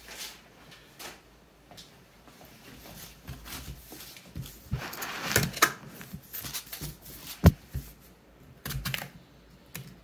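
Cardboard mailing box being handled while a hobby knife slits the packing tape along its seam: scattered taps, scrapes and clicks, with one sharp knock about seven and a half seconds in.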